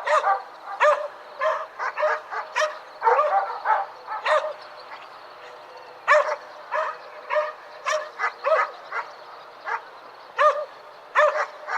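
Several distant dogs barking, with short barks coming irregularly, sometimes in quick runs of two or three and sometimes singly, over a steady background hiss.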